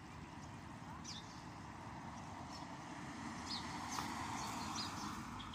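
Small birds chirping in short, falling calls, a few at a time, over a steady low hum of street traffic; a passing vehicle swells and fades around four seconds in.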